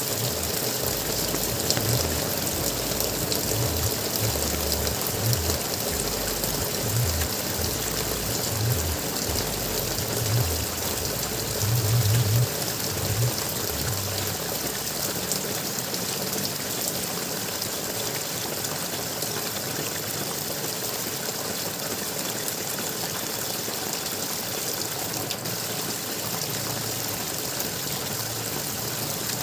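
Flowing water gurgling in a steady rush, with irregular low gurgling pulses through the first half.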